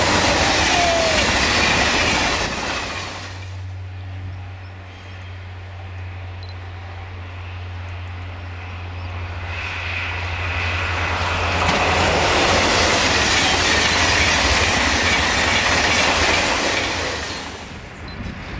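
Double-deck TGV high-speed trains passing at speed: the rear of one rushes past in the first three seconds, then after a quieter stretch with a low steady hum a second TGV passes with a loud rush from about ten seconds in, dying away near the end.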